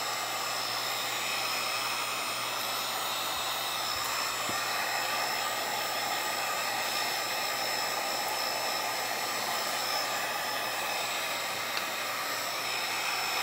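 Electric heat gun running steadily, its fan blowing a hissing stream of hot air to shrink a heat-shrink sleeve onto an 18650 lithium-ion cell, with a thin high whine held above the airflow.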